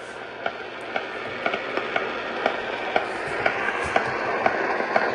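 A regular ticking, about two ticks a second, over a hiss that slowly grows louder.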